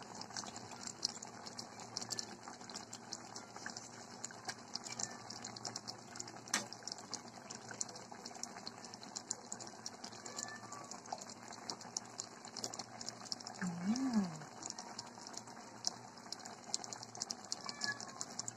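Catfish in coconut milk simmering in a stainless steel pot: a fast, fine crackle of small bubbles popping. There is a single click about a third of the way in, and a short hum of a person's voice about three-quarters in.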